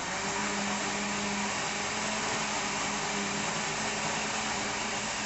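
Electric blender running steadily at one speed, mixing a pie batter.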